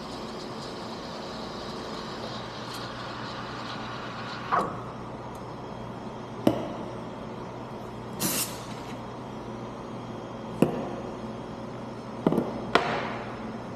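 Espresso machine steam wand hissing steadily into a metal milk pitcher while steaming milk, stopping about four and a half seconds in. Then a series of sharp metal clanks and clinks from the pitcher, portafilter and cup, with a short burst of steam hiss about eight seconds in.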